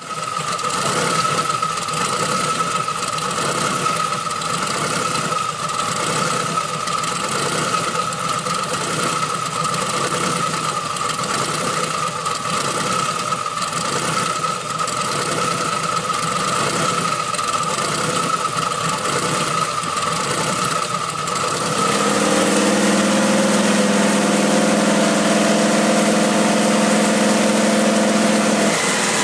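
Twin-turbo 463 cubic-inch LSX V8 idling with a rhythmic lope of about one and a half pulses a second, with a steady high whine over it. About two-thirds of the way through, the lope gives way to a smoother, steady drone.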